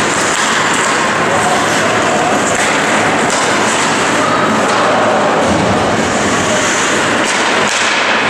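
Steady din of an ice hockey game in an indoor rink: indistinct voices of spectators and players over the general noise of play.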